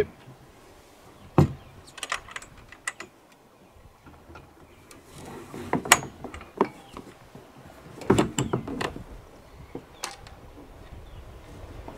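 Rope being hauled through a loop and cinched down at a sailboat's deck rail to lash an inflatable dinghy: scattered knocks and clicks, with stretches of rope rustling about five and eight seconds in.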